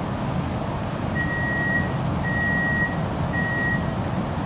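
Three electronic warning beeps from an X'trapolis 100 electric train, typical of its door-closing warning at a station stop, each lasting under a second and about a second apart, over the steady low hum of the standing train.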